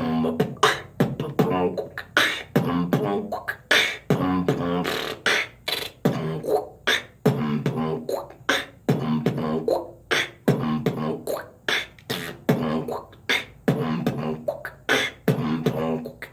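Beatboxing: a steady rhythm of sharp percussive mouth hits, several a second, mixed with short pitched, rough throat sounds worked into the beat.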